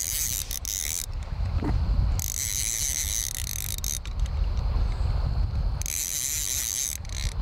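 Islander fly reel's ratchet drag buzzing in three stretches of one to two seconds as a hooked smallmouth bass pulls line, under a steady low rumble.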